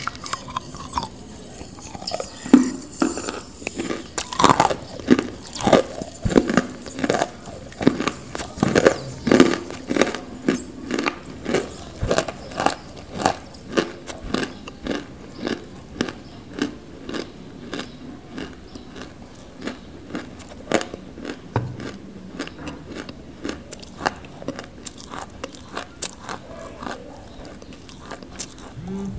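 Close-miked biting and chewing of a big, powdery chunk of non-roasted nakumatt edible clay. A sharp crunch as the piece is bitten off at the start gives way to dense dry crunching, which settles into steady chewing crunches, about two a second, growing softer toward the end.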